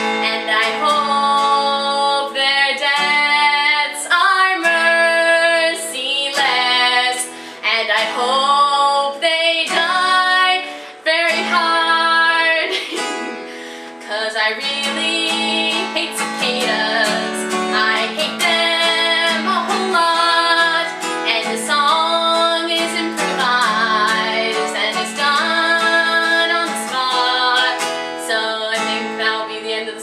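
Two young women singing an improvised song to a strummed acoustic guitar.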